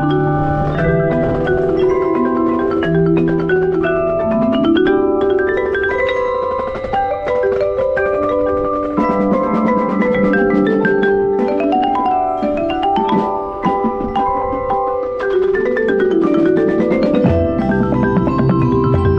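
Background music led by marimba-like mallet percussion: quick melodic note runs over a bass line, with no speech.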